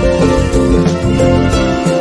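Background music: a pitched tune of short stepping notes over a steady beat.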